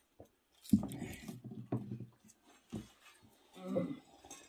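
Plunger of a tall wooden butter-tea churn thrust down and pulled up through the liquid, a sudden low churning stroke about once a second, four strokes in all, the first the loudest.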